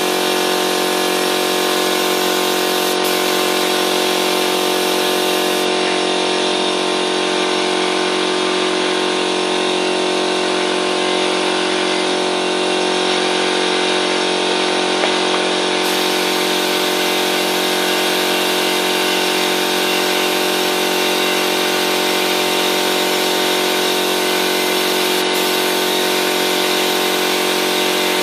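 Air compressor running steadily, feeding the spray gun: a constant motor hum with a hiss that does not change.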